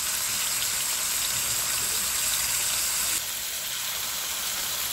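Seasoned shrimp sizzling in hot oil in a frying pan: a steady hiss that drops a little in level about three seconds in.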